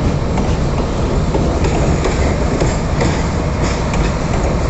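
Loaded freight wagons rolling past close by: a steady rumble, with the wheels clacking over the rail joints.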